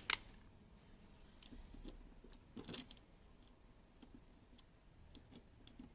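Faint small metal clicks and ticks, with a short scrape about two and a half seconds in, as the retaining screw is refitted on the reversed latch of a multi-point door lock gearbox.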